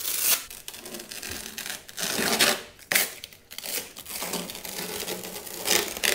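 Thin foam packing sheets being peeled and pulled off a plastic lawn mower deck, rustling and scraping against it in uneven bursts, louder about two and a half seconds in and again near the end.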